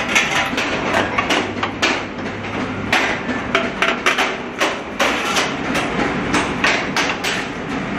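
Repeated sharp metal knocks and clanks on stainless steel sheet, irregular at about two a second. A low hum comes in about a second in and lasts about two seconds.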